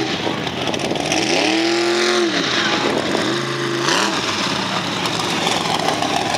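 Lifted mud-bog pickup truck's engine revving hard in two swells, a longer one about a second in and a shorter one a few seconds later, as the truck churns through the mud pit, over a steady rush of noise.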